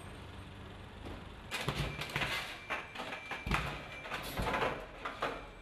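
A low steady machine hum, then from about a second and a half in a run of irregular knocks and clatters as pieces of construction waste, wood offcuts and scrap metal, tumble and bang on a sorting conveyor belt, with a faint high whine coming and going.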